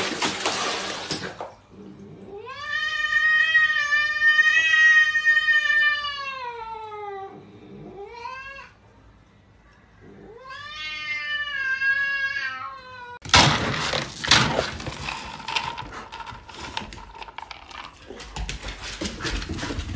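A cat yowling: a long drawn-out call of about five seconds, a short one, then another long call. After that comes a stretch of noisy clatter and scuffling.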